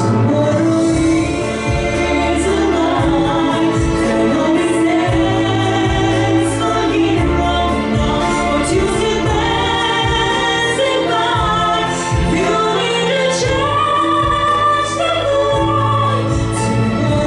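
A woman singing a pop-jazz song over an instrumental backing track, her held notes gliding between pitches above a steady bass line.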